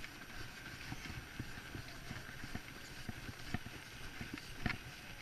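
Footsteps on packed snow at a steady walking pace of about two steps a second, with a sharper click about four and a half seconds in.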